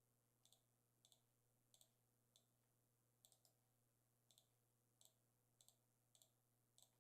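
Faint computer mouse clicks, some single and some in quick pairs, coming about every half second to second over a faint steady hum.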